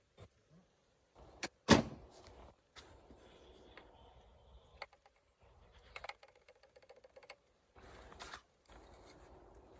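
Hand tools being handled on the plastic oil filter housing of an engine: a sharp clack about two seconds in, the loudest sound, then quiet handling and a run of fine rapid clicking with a light rattle later on.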